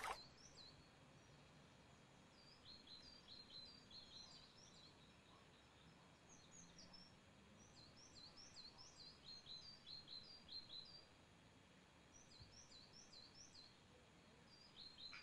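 Faint songbirds chirping: quick high notes that sweep downward, coming in runs of several at a time every two or three seconds, over a quiet hiss of open air.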